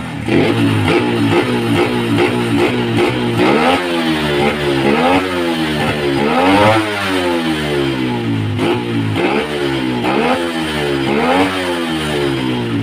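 Carburetted Yamaha Jupiter MX's single-cylinder four-stroke engine revving up and falling back again several times. It runs on a racing CDI, and its rev limiter no longer cuts in.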